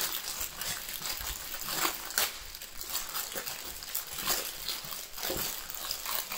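Plastic packaging rustling and crinkling as the underwear is pulled out of its pouches, with scattered sharp crackles.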